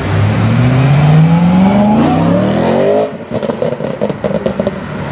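BMW E92 M3's V8 through an Akrapovic exhaust accelerating hard, its pitch rising for about three seconds. Then the throttle closes and the exhaust gives a rapid, irregular string of crackles and pops on the overrun.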